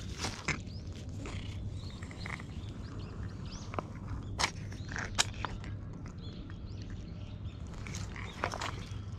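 Dry fallen leaves and grass rustling and crackling with sharp little clicks as cats step and are stroked on the leaf litter, over a steady low rumble. Birds chirp faintly.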